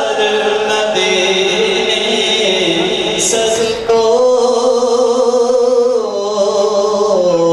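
A man singing a naat into a microphone, drawing out long held notes. The pitch shifts upward about four seconds in and steps down near the end.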